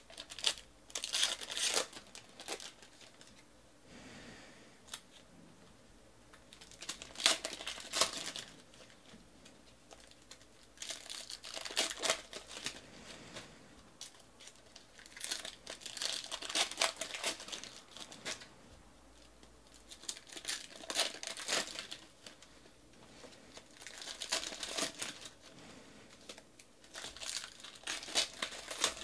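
Foil trading-card pack wrappers being torn open and crumpled by hand. The crinkling comes in short bouts every few seconds, about seven in all, with quieter handling between them.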